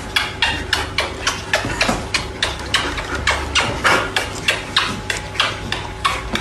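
Rapid, fairly regular tapping or knocking, about four knocks a second, over a steady low hum.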